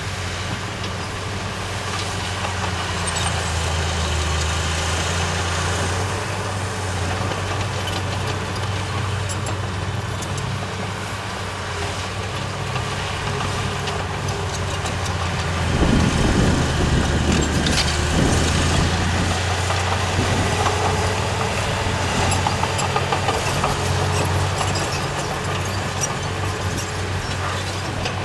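Diesel engine of heavy road-building machinery running steadily, with a louder, rougher rumbling stretch of about three seconds past the middle.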